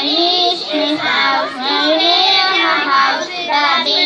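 A group of children singing a song together into handheld microphones.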